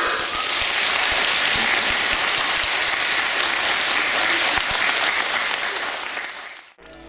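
Audience applauding steadily, fading away after about six seconds and cutting off sharply.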